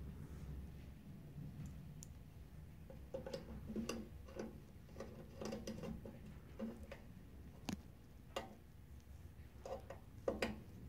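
Faint, irregular clicks and light taps of a hand screwdriver and small parts being handled inside a resin 3D printer's metal base, sparse at first, then scattered from about three seconds in, with the loudest pair of clicks near the end.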